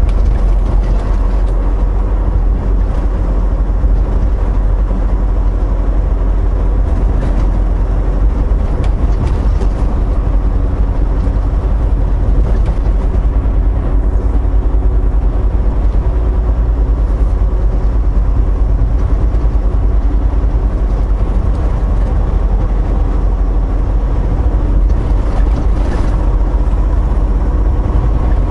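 Inside a semi-truck's cab cruising at highway speed: a steady low rumble of engine and road noise, with a faint even hum of engine tones above it.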